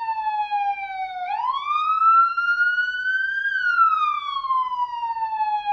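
Police siren on a slow wail: the pitch swoops up about a second in, then glides slowly down, one full rise and fall.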